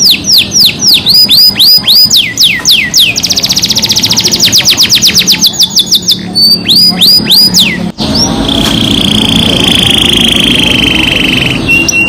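Domestic canary singing a lure song. It gives a run of sharp downward-sweeping whistled notes, about four a second, then a very fast trill, then more sweeping notes. After a brief break about two-thirds of the way in, it holds a long rolling trill at one pitch.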